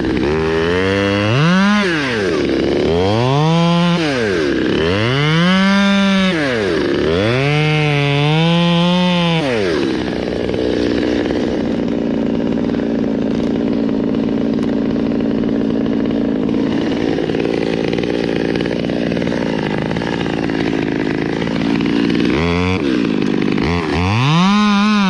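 Stihl 200T top-handle two-stroke chainsaw revving up and down about four times, then running at a steady pitch for about twelve seconds, as a saw does held in a cut, then revving up and down again near the end.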